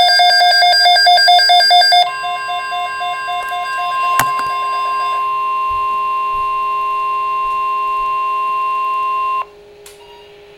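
NOAA Weather Radio Emergency Alert System alert: a buzzing, rapidly warbling burst of SAME digital header tones ends about two seconds in. The steady 1050 Hz weather-radio warning alarm tone follows, with a single click partway through. The tone cuts off suddenly near the end, leaving faint radio hum and hiss.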